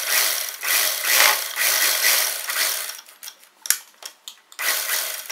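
Domestic sewing machine stitching in short runs while topstitching along a collar's edge, with a single sharp click a little past the middle.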